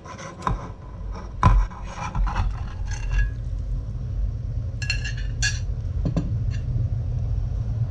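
A metal spoon clinks and scrapes against a ceramic plate and the rim of a steel pan as fish steaks are pushed off into the broth, the sharpest knock about a second and a half in. About five seconds in, the plate and spoon are set down on the counter with a cluster of ringing clinks, over a steady low rumble.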